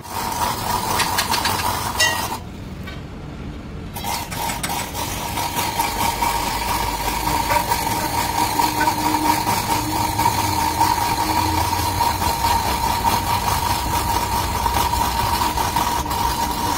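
Angle grinder working into the steel of a backhoe boom, running with a steady high whine over the harsh noise of the disc on metal. It stops for about a second and a half about two seconds in, then starts again and runs on.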